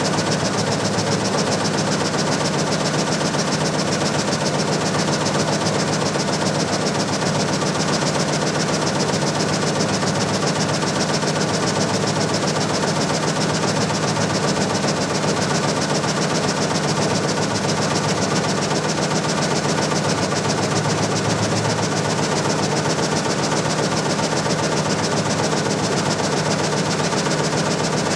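MAC-200 thin-cutting frame saw running steadily, its gang of reciprocating blades sawing wood blocks into thin boards, with a fast, even rhythm from the blade strokes.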